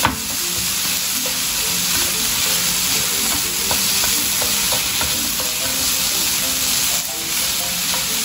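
Noodles, cabbage and peppers sizzling steadily in a hot oiled frying pan while being stirred and tossed with chopsticks, with small clicks of the chopsticks against the pan.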